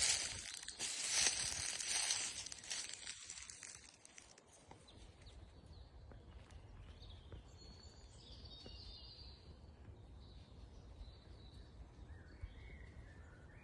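Outdoor nature ambience: a loud rustling noise for the first few seconds, then quieter background with a few faint bird calls.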